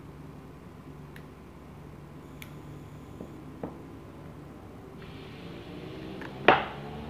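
Small metal clicks and taps as parts of a Shimano Ultegra 14000 spinning reel are fitted by hand and with tweezers, over a low steady hum. A few faint ticks, then one sharp, loud click about six and a half seconds in as a part is pressed into the reel body.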